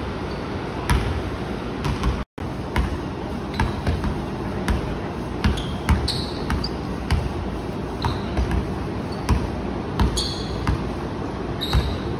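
Basketball dribbled on a hardwood gym floor, sharp bounces coming about twice a second at times, with short high sneaker squeaks on the wood, over a steady background hiss.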